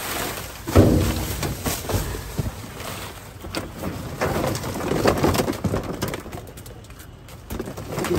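Clear plastic trash bags and cardboard rustling and crinkling as a garden hose is dragged out from among them, with a dove cooing.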